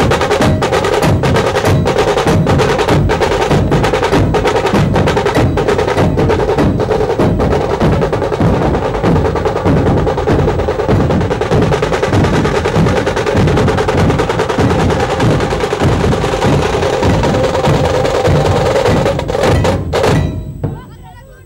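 Dhol-tasha ensemble drumming: large barrel dhols and tashas struck with thin sticks, playing a fast, dense rhythm with sharp cracking strokes. The drumming stops suddenly near the end.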